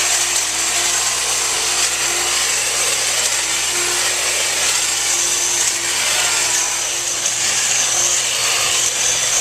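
Tree-trimming power equipment running steadily: a continuous loud mechanical saw-like noise with a faint wavering hum.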